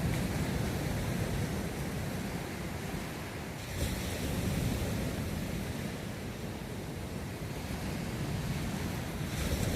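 Atlantic Ocean surf washing continuously onto the beach, with one wave swelling louder about four seconds in. Wind buffets the microphone.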